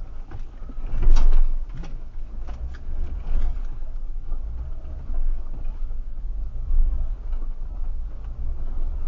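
A 4x4's engine running low and steady as the vehicle crawls through deep mud, heard from inside the cabin. Knocks and rattles of the vehicle jolting over the ruts come in a cluster in the first few seconds, the loudest about a second in, with a few lighter ones later.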